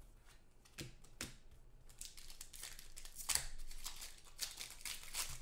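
Foil wrapper of a 2014 Panini Certified football card pack crinkling and tearing as it is ripped open by hand. A few light clicks come first; the crackling starts about two seconds in and is loudest a little past the middle.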